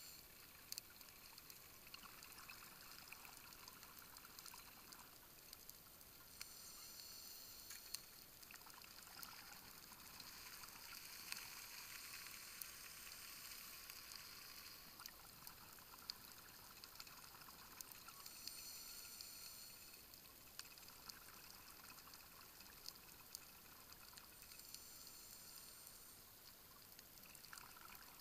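Faint underwater sound through a dive camera's housing: scuba divers' exhaled air bubbling from their regulators in short bursts every six seconds or so, over a low hiss with scattered small clicks.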